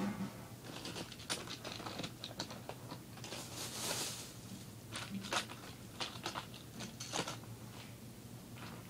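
Irregular light clicks and taps, with a soft rushing hiss about four seconds in, over a faint steady hum.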